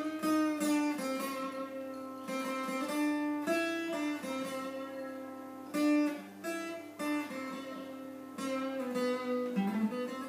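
Steel-string acoustic guitar played solo: chords strummed and picked, with the notes left to ring between strokes.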